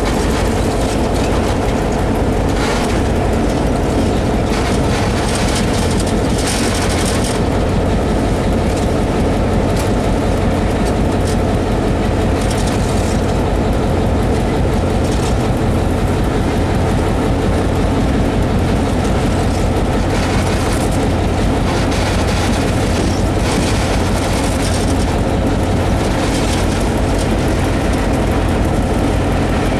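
Diesel locomotive under way, heard from the cab: a steady engine drone with wheel-on-rail noise that swells and fades several times.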